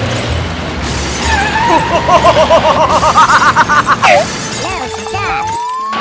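Cartoon-style sound effects laid over the action. A warbling tone rises and pulses rapidly for about two seconds, then ends in a quick falling swoop, and a rising whistle-like glide starts near the end.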